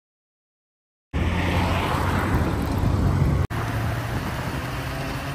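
Steady vehicle and road noise with a low hum. It cuts in after about a second of dead silence and drops out for an instant about three and a half seconds in.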